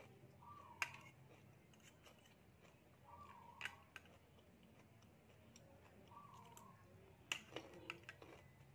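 Metal fork and spoon clicking against a plate a few times: sharp single clicks about a second in and near the middle, and a quick cluster near the end. A bird gives a short warbling call about every two and a half seconds.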